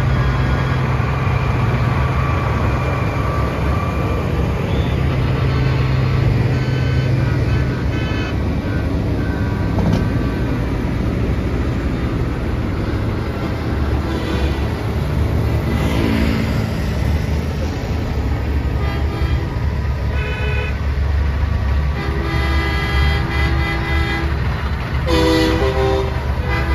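Convoy of semi trucks passing with diesel engines running and truck horns blasting again and again. The horns are short toots at first, then a longer run of loud multi-tone blasts near the end.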